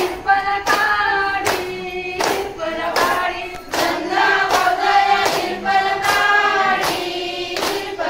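A group of women singing a traditional fugdi song together in unison, kept in time by sharp handclaps about every 0.8 seconds.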